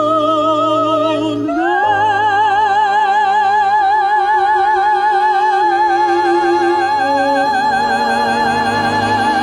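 Classical soprano singing long held notes with a wide vibrato, stepping up to a higher note about two seconds in, over sustained low string accompaniment.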